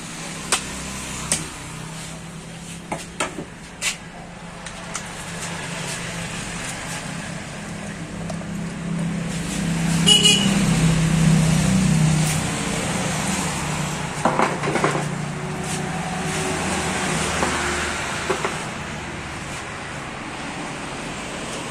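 Sharp knocks and cracks of a large knife cutting through a tuna's head on a wooden chopping block, over the steady hum of a running vehicle engine that grows louder in the middle, with a short high toot about ten seconds in.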